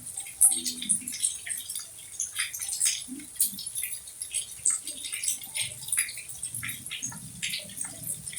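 Rain dripping and pattering in many irregular, quick drops over a steady hiss.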